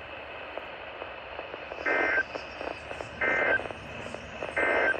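Weather radio receiver hissing between broadcasts, broken by three short buzzy tones about a second and a third apart.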